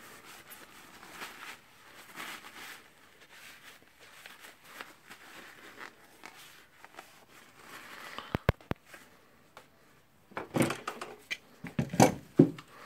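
Small tool parts being handled and screwed together by hand: faint rustling and light ticks, a few sharp clicks, then louder crinkling of paper and knocks near the end.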